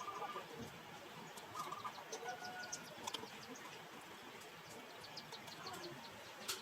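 Faint outdoor background with birds chirping a few times and scattered light clicks.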